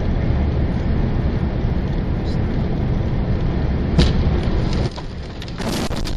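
Steady low rumble of a vehicle driving on the road, with a single sharp knock about four seconds in. The noise drops and changes abruptly near the end.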